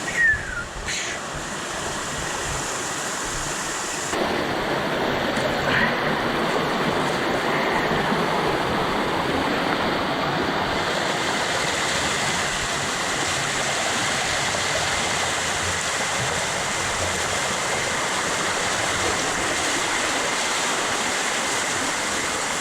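Creek waterfall rushing steadily, with water pouring over rock. It grows louder about four seconds in and then holds steady.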